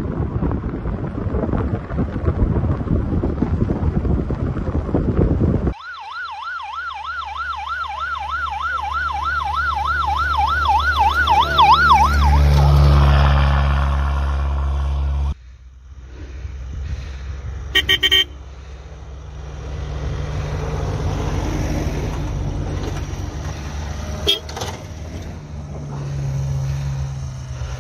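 Wind buffeting the microphone, then a fast warbling siren over a running SUV engine. From about fifteen seconds in, an SUV drives steadily along a snowy road.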